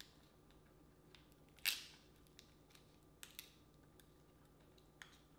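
King crab leg shell being cracked and snapped apart by hand: one sharp crack a little under two seconds in, then a quick pair of smaller snaps and one more near the end, with faint clicks between.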